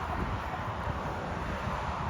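Steady outdoor background noise: an even rumbling hiss with no distinct calls or strikes.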